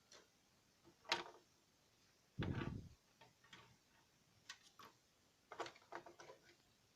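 Faint scattered clicks and knocks of plastic LEGO parts being handled, with a heavier thump about two and a half seconds in.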